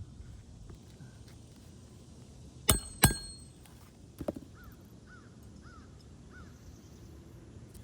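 Hammer striking a roof snake nail-driving tool twice in quick succession, sharp metallic hits with a brief ring, then a lighter knock about a second later, as it drives a nail under a lifted asphalt shingle tab.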